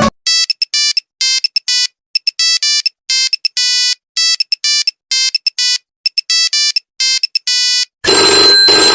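Monophonic mobile phone ringtone: a simple melody of short electronic beeps, played in repeating phrases of quick notes ending on a longer one, with silence between the phrases. Near the end it gives way to a different, louder ringing sound.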